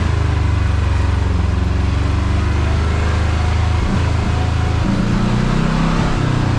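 Side-by-side UTV engine running while driving, over a steady rush of road noise; the engine note shifts about five seconds in.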